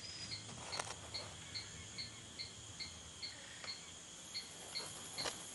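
Faint night rainforest ambience: a small animal chirping evenly, a little over two short chirps a second, over a soft hiss.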